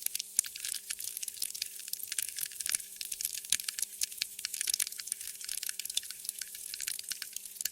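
Wood fire crackling in a fireplace: dense, irregular pops and snaps over a steady hiss.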